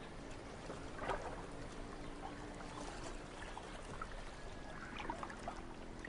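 Faint water ambience: gentle lapping and trickling, with a few faint scattered ticks.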